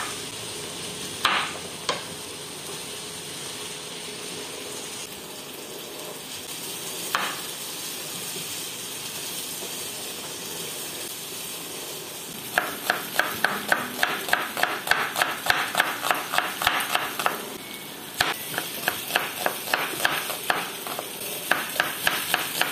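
Chef's knife cutting onion on a bamboo cutting board: a few separate cuts, then from about halfway rapid chopping, the blade knocking on the wood about four times a second, with a short pause near the end. Under it, the steady sizzle of carrots frying in a pot.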